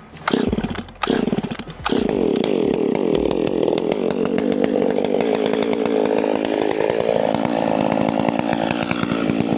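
Chainsaw starting up: two short bursts, then it catches about two seconds in and runs steadily, its pitch rising around seven seconds in.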